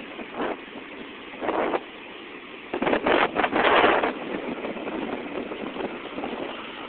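Rough surf churning and breaking around a jetty, a steady rush of water noise through a phone microphone, with louder surges around a second and a half in and the loudest between about three and four seconds.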